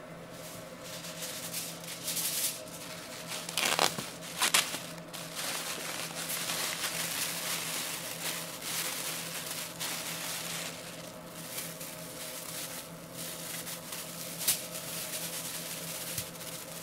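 Aluminium foil crinkling and crackling as a sheet is handled and smoothed flat, with a few sharp crackles along the way. A plastic bag rustles near the end.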